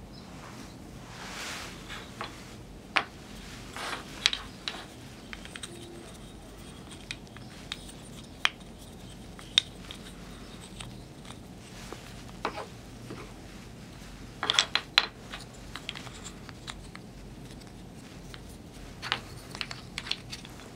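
Small walnut burr-puzzle pieces clicking, knocking and sliding against one another as they are fitted together by hand, in scattered light taps with a quick cluster of clicks about two-thirds of the way through. A steady low hum runs underneath.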